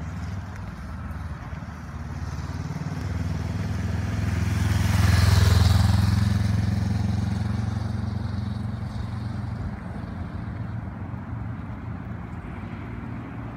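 Motorcycle engine running as the bike rides past close by, getting louder to a peak about five seconds in and then fading as it moves away.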